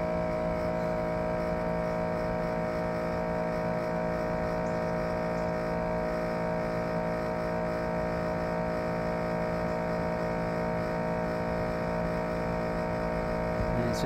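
Premium Levella mini-split outdoor unit running, its compressor giving a loud, steady hum made of several fixed tones over a low rumble. This is the sound of the compressor about to fail; it later seized completely.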